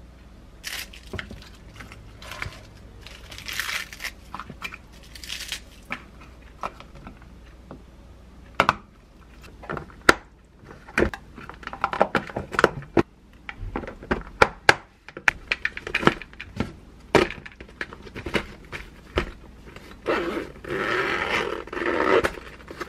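Lock&Lock plastic lunchbox lids pressed on and their snap-latch flaps clicked shut: a run of sharp plastic clicks and knocks. Near the end comes a longer stretch of fabric rustling as the cloth lunch bag is handled.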